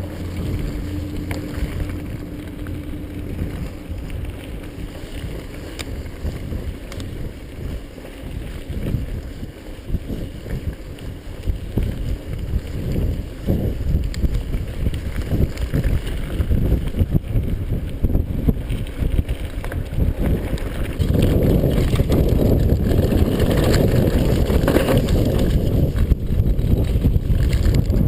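Mountain bike descending a rough dirt trail: tyres rumbling, the frame rattling over bumps and wind buffeting the microphone, growing louder and busier about three-quarters of the way through as speed picks up.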